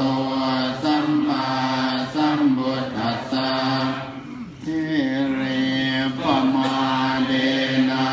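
Buddhist chanting by a group of voices in unison, held notes in short phrases with a brief break about halfway through.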